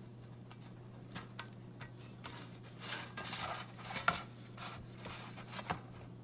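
Butter being rubbed over the inside of a metal baking tray to grease it, a soft scraping and smearing with a few light clicks and knocks from the tray.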